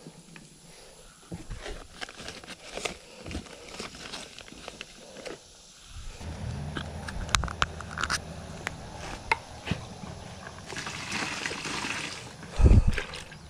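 Hands working and crumbling peat moss and soil in a plastic wheelbarrow, with small rustles and crackles. About halfway a low steady hum comes in, and there is a loud thump near the end.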